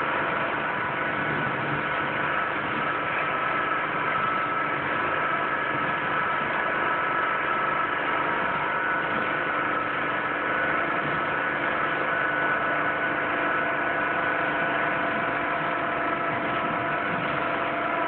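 High-pressure washer running, with a steady hiss of the water jet over an even machine hum, as the surfaces are soaked down.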